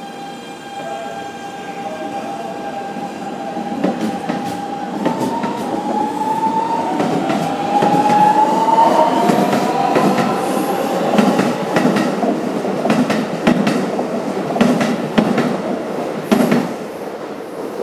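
Keikyu New 1000 series electric train with a Siemens GTO VVVF inverter accelerating: the inverter's motor whine rises slowly in pitch while the wheels clack over rail joints. It grows louder through the first half and stays loud.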